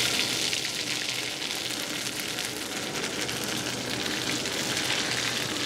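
Chopped ginger and garlic frying in hot mustard oil in a kadhai: a steady crackling sizzle as the tempering cooks.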